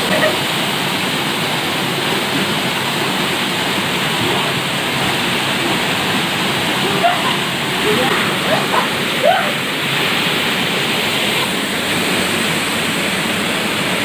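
Waterfall pouring into a rock pool: a steady rush of falling water.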